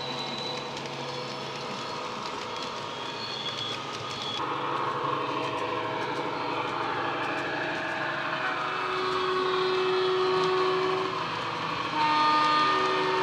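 Bachmann Class 70 model locomotive's LokSound DCC sound decoder playing its diesel engine sound through an onboard speaker, with the model's wheels running on the track. About nine seconds in it sounds its horn in a long blast, and a second, louder blast follows about a second later.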